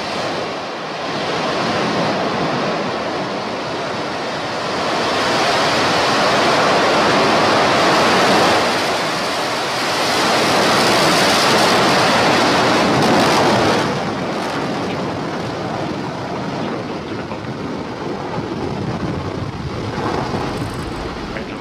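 Starship SN5's single Raptor rocket engine firing through liftoff and climb: a loud, steady noise that grows louder about five seconds in and drops back about fourteen seconds in.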